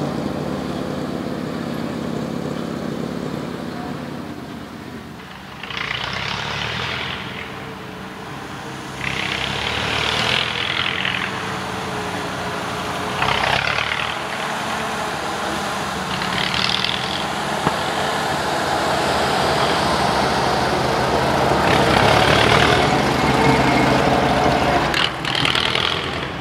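GAZ-66 army truck's V8 petrol engine running and revving as the truck drives over rough off-road ground, growing louder in the second half as it comes close. Several short hissing bursts break in over the engine.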